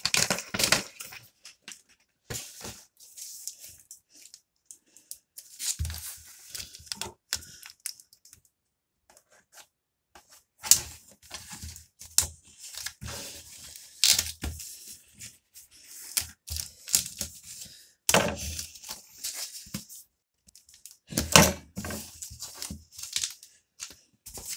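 Mail packaging being torn open and handled: repeated bursts of tearing, crinkling and rustling of a plastic mailer bag and cardboard, with short pauses between them.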